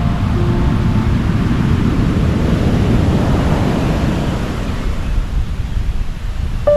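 Heavy surf from a storm-rough sea: waves rushing and breaking, swelling to a bigger crash about three seconds in, with wind rumbling on the microphone.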